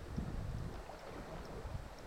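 Wind buffeting the microphone: an irregular, gusty low rumble.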